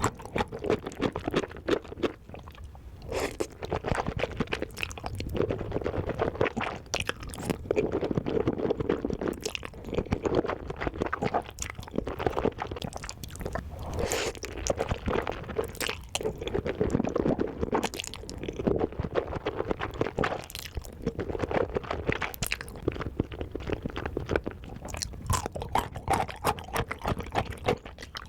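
Close-miked eating: steady wet chewing with crunchy bites, mouth-noise clicks coming thick and irregular.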